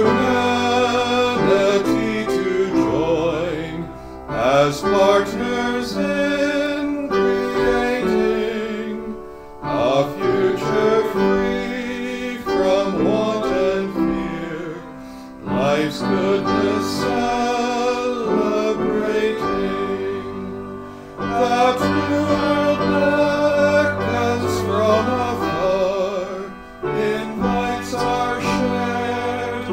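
A hymn sung by one voice with upright piano accompaniment, in phrases with short breaks between them.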